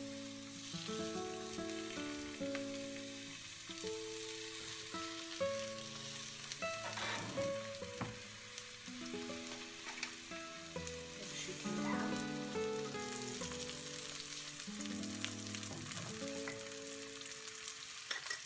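Courgette slices sizzling in olive oil in a frying pan, a steady frying hiss. Quiet background music of held notes plays along with it.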